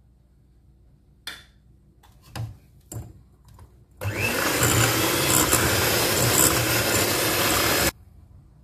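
Electric hand mixer with twin wire beaters running in a glass bowl of batter for about four seconds. It starts with a quick rising whine as the motor spins up and cuts off suddenly. A few short knocks come before it.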